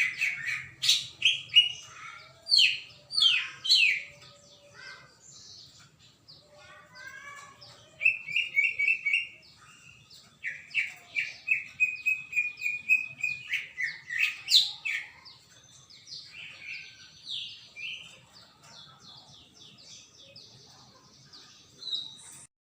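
Cucak ijo (green leafbird) in full song: a varied run of quick chirps, sweeping whistled notes and rapid trills, coming in bursts, with the loudest stretches at the start and in the middle, then softer and sparser toward the end.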